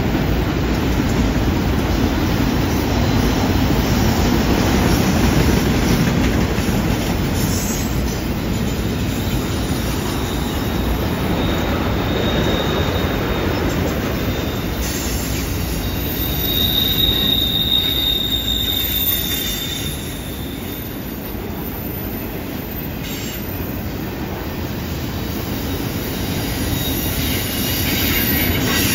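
Enclosed autorack freight cars rolling past with a steady rumble of wheels on rail. For several seconds around the middle, a high wheel squeal rises over it: wheel flanges squealing as the train takes the curve.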